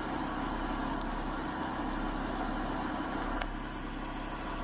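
A Lamborghini Huracán's engine idling steadily, heard through a police body camera's microphone beside the driver's door.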